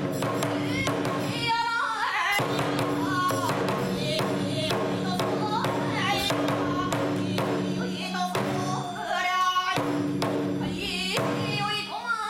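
Bitchū kagura accompaniment music: a drum beats a steady rhythm under a repeating melodic phrase that recurs about every two seconds.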